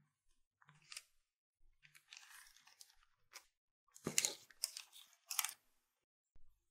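Cream being worked by hand: soft crinkling and squishing of a piping bag, then a few louder scraping strokes of a metal offset spatula spreading the cream across the mould in the second half.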